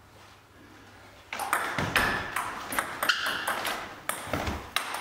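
Table tennis rally: the celluloid-type ball clicking sharply off the bats and the table in quick succession, starting a little over a second in.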